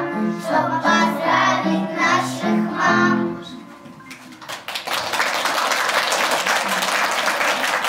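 A group of young children singing a song in unison over an accompaniment track; the song ends about three seconds in, and after a short lull the audience breaks into steady applause.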